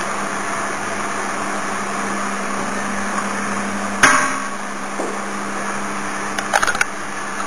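Steady hiss of a flushed toilet refilling, over a low hum, broken by one sharp knock about four seconds in and a short run of clicks near the end.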